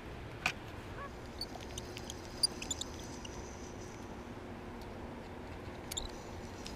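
Spinning reel being handled: a few sharp clicks and brief high squeaks over a steady low background rumble.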